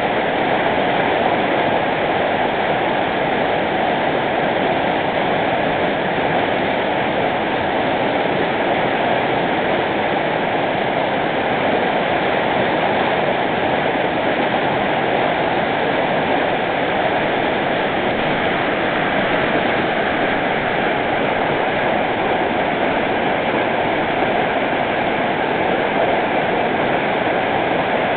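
Whitewater rapid rushing over and between large boulders: a steady, loud, unbroken rush of water.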